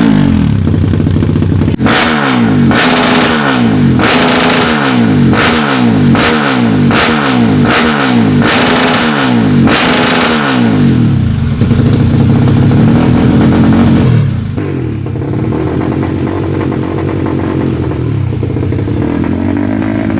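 Kawasaki KLX motorcycle's 220cc single-cylinder engine blipped on the throttle over and over, each rev rising and falling a little more than once a second. It is then held at high revs for about three seconds and drops back to a lower, steady idle about fourteen seconds in.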